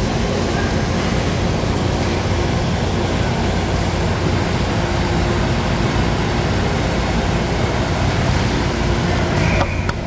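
Steady loud hum and rush of the arena's ventilation fans, with a few sharp knocks near the end.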